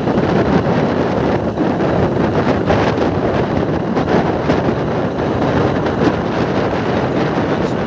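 Steady, loud wind buffeting the microphone of a camera carried at speed in the open air along a highway, with the rush of the vehicle and its tyres on the road underneath.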